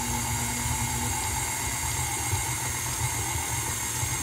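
KitchenAid Classic stand mixer running with a steady motor hum, its dough hook turning flour and milk into dough in the steel bowl.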